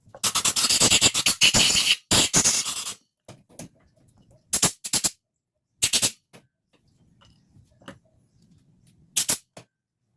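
Compressed-air blowgun blowing leftover test water out of a carburetor's passages to dry them: two long hissing blasts, then several short puffs.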